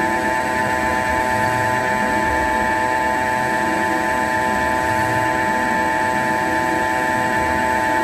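CNC turning lathe running with a steady whine of several tones from its spindle drive as the tool takes a cut on the radius of the turned part.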